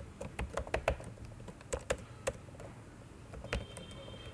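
Computer keyboard keystrokes clicking in short irregular runs: a quick burst of about five in the first second, a few more around two seconds in, and a single one later.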